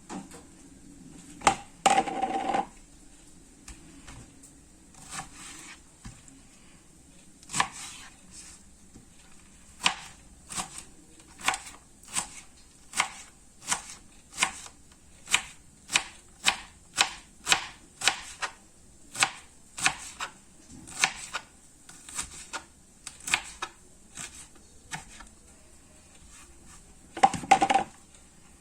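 Knife chopping vegetables against a plate: sharp clicks, sparse at first, then a steady cadence of about one and a half cuts a second. A louder clatter of kitchenware comes about two seconds in and again near the end.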